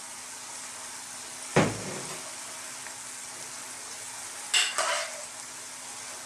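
Cream sauce with mushrooms and sweetcorn sizzling in a frying pan on high heat, a steady hiss. There is a sharp knock about one and a half seconds in and two quick knocks a little after four and a half seconds.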